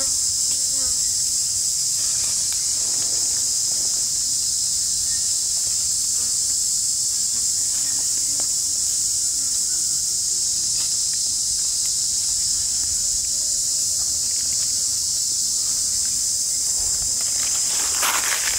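Forest insect chorus, a steady high-pitched drone. Near the end it is joined by crackling rustles in dry leaf litter.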